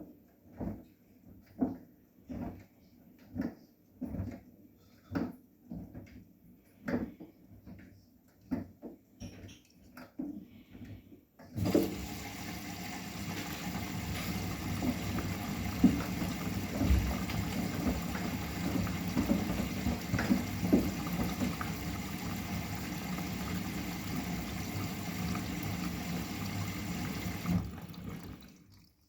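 Bosch WGA25202TR washing machine on its delicate 30 °C cycle. First the drum turns with a rhythmic slosh a little more often than once a second. About eleven seconds in, water starts rushing through the machine; it runs steadily for about sixteen seconds and then cuts off suddenly.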